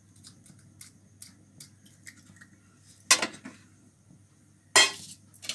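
Steel kitchenware being handled: a steel plate and spoon clink and scrape. There are a few light ticks, then two louder short clatters, about three seconds and about five seconds in.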